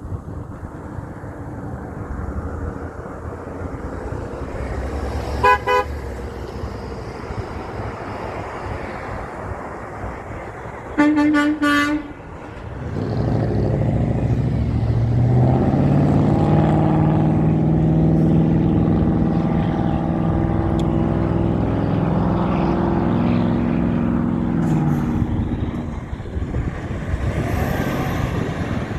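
Big truck sounding its horn, a brief toot and then a louder blast about a second long. Its engine then pulls past with a rising, then steady, drone before fading away.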